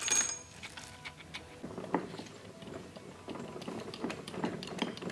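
Metal clicking and rattling from the camshaft sprocket, timing chain and other parts of a Honda XR250 four-stroke cylinder head being worked loose by hand. There is a sharp click at the very start, then irregular clicks and rattles.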